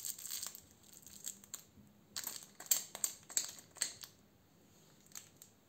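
Crinkle filling inside a plush baby toy rustling as a hand squeezes and handles it, in a first patch and then a denser run of crackles about two seconds in, dying away near the end.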